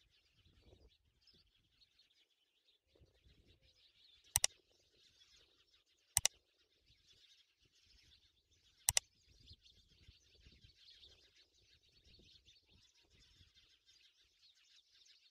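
Faint, continuous chirping of small birds, with three sharp clicks about four, six and nine seconds in.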